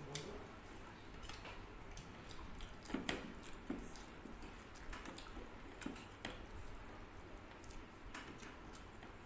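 Soft eating-by-hand sounds: fingers squishing and mixing rice and curry on plates, with chewing and lip smacks. Scattered small clicks, a couple of louder ones about three seconds in.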